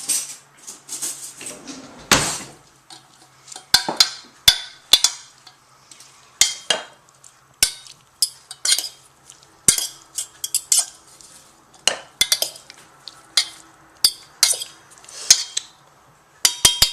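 Beans being stirred with butter and seasoning: a metal utensil clinking and scraping against the cooking vessel in an irregular run of sharp clinks, about one or two a second.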